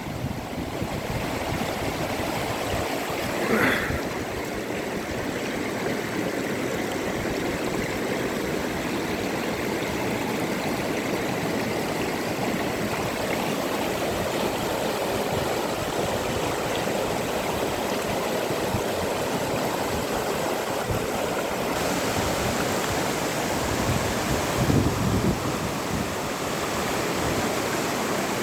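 Ganges river water rushing steadily, with a brief louder sound about four seconds in and again near the end.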